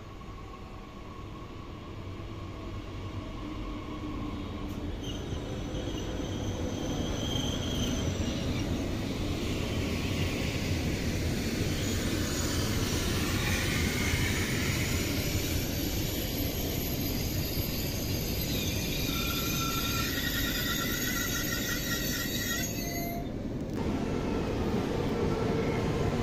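SNCF AGC Z 27500 electric train approaching and running along the platform, its rumble growing louder over the first ten seconds, with high-pitched squealing tones above it, strongest a few seconds before the end. About two and a half seconds from the end the sound changes abruptly to another train, a Régiolis Z 51500.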